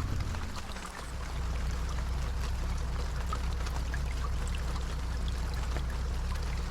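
Inside a travelling intercity coach bus in the rain: a steady low drone of engine and road, with scattered small ticks of rain on the bus. The drone dips briefly about a second in, then comes back steadier.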